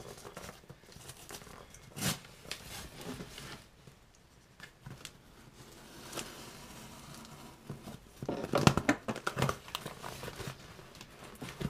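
Cardboard shipping box being opened by hand: packing tape tearing and packaging crinkling and rustling, with a sharp knock about two seconds in and the loudest burst of crinkling and tearing around eight to nine seconds in.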